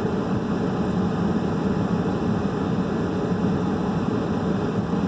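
Steady rushing noise, even and unbroken, strongest in the low and middle range, like air moving through a running blower.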